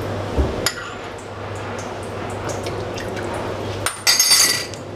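Pot of soup boiling with a steady bubbling hiss over a low hum as cornflour slurry is added. There is a knock about half a second in, and near the end a spoon clinks and scrapes loudly against a glass bowl.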